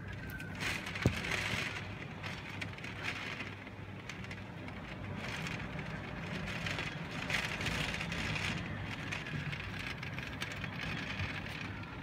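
Typhoon-strength wind gusting with rain, a continuous rushing noise that swells and eases. A single sharp knock about a second in.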